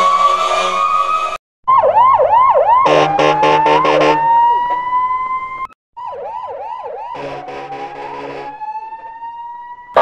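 Police siren and horn sound effect: the end of a rising wail, then a rapid yelping siren, a pulsing horn blast and a slow rising wail. The sequence repeats about six seconds in, noticeably quieter.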